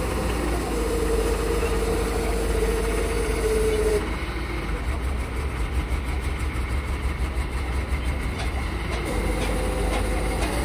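Crane lifting a diesel engine block: a steady engine rumble with a steady whine on top that stops about four seconds in and comes back near the end.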